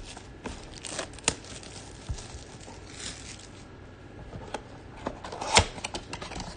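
Plastic shrink-wrap crinkling and tearing as it is peeled off a cardboard trading-card box, with scattered light clicks of the box being handled; the loudest is a sharp click about five and a half seconds in.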